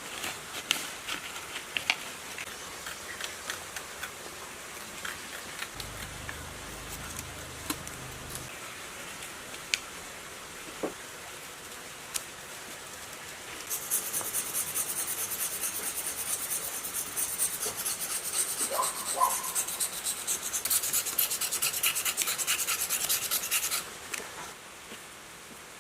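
Scattered light clicks and scrapes of hand work, then about ten seconds of fast, steady abrasive rubbing, like filing or sanding, that stops near the end.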